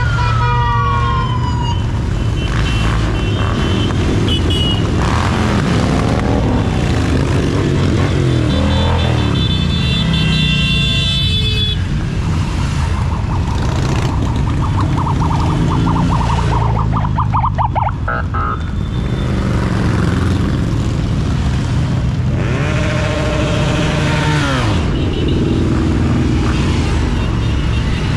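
A procession of motorcycles, trikes and scooters riding past close by, their engines running and revving one after another. Horn toots and a siren-like wail sound over the engines at times, a falling wail right at the start.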